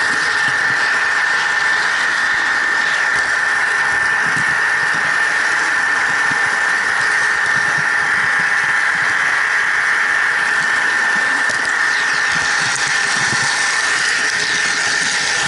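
Model train running along its track, heard close up from a camera car riding on it: a steady high-pitched whine over constant rolling noise.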